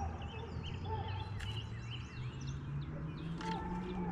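Several songbirds chirping and singing in quick, overlapping calls, over a low steady hum.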